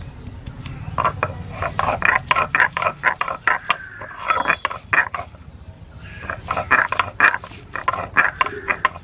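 Garlic cloves being crushed and ground to a paste with a stone roller on a stone grinding slab (shil-nora): rapid, irregular clacking and scraping of stone on stone. The strokes start about a second in and pause briefly near the middle.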